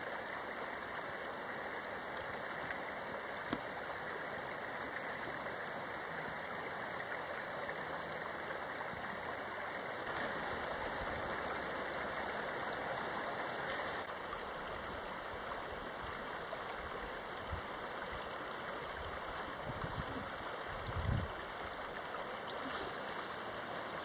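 Steady rushing of a river, with a brief low thump near the end.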